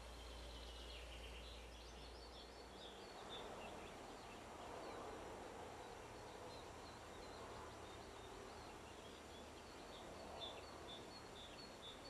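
Faint songbird song: runs of short, high chirping notes, one in the first few seconds and another near the end, over a soft background hiss.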